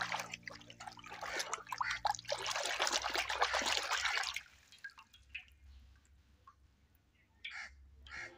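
A hand splashing and swishing water in a tub while scrubbing a rubber toy mouse, for about four seconds, then the splashing stops and a few soft drips follow as the toy is lifted out.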